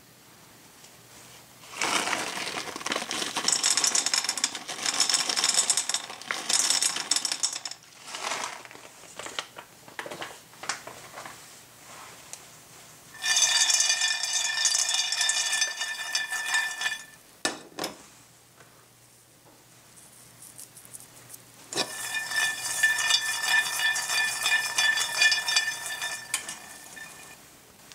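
Red-skinned peanuts rattling and rolling around a stainless steel frying pan with a little oil, in three bouts of several seconds each as the pan is shaken. In the last two bouts the metal pan rings under them.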